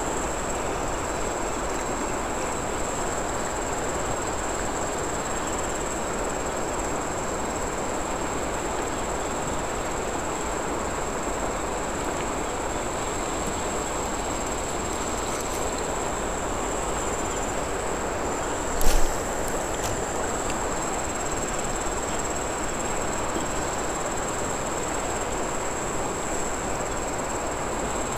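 Steady rushing of flowing river water, with a continuous high-pitched drone of insects over it. A single brief knock about two-thirds of the way through.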